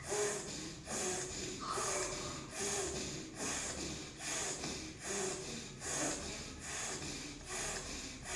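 A person doing rapid, forceful breaths through the nose in a steady rhythm, a little over one a second, with air drawn in through one nostril and pushed out through the other. This is the quick alternate-nostril breathing done as a nostril-cleansing warm-up for nadi shodhana pranayama.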